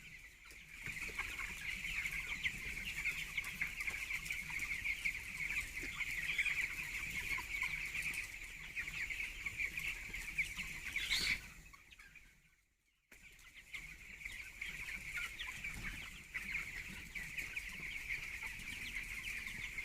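A flock of 17-day-old chicks peeping continuously, many high-pitched cheeps overlapping. It fades out briefly just past the middle and starts again suddenly about a second later.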